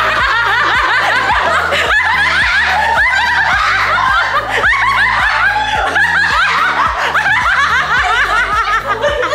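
Several women laughing hard together over background music.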